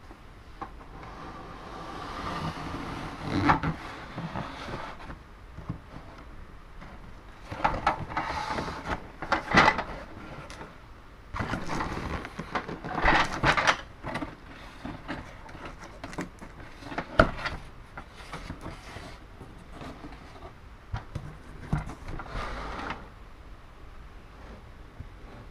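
Cardboard game box being handled, turned over and its flaps opened: irregular rustling and scraping of cardboard, with a few sharp knocks.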